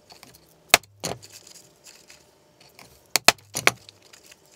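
Hand punch cutting small washers out of thin PTFE sheet: a few sharp clicks, two about a second in and three more in quick succession near three seconds in.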